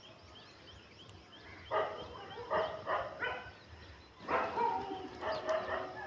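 Short animal calls in two clusters: a few in quick succession about two to three and a half seconds in, and more from about four seconds in.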